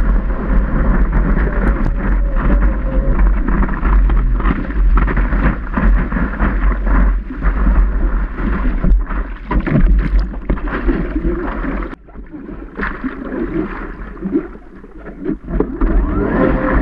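Water rushing and spraying past a surfboard as it rides a wave, with heavy wind buffeting on the board-mounted microphone. About twelve seconds in, the rush drops away sharply, and near the end a steady hum comes in.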